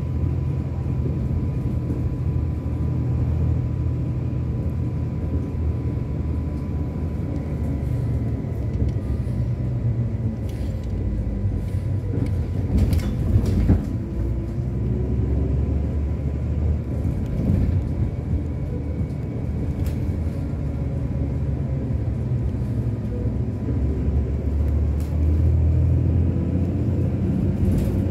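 City bus driving along, heard from inside the cabin: steady engine and road rumble, with a short louder rattle about halfway through.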